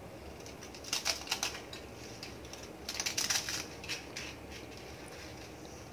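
Roasted papad snapping and crackling as it is broken by hand into pieces, in two bursts of rapid brittle clicks about a second in and about three seconds in.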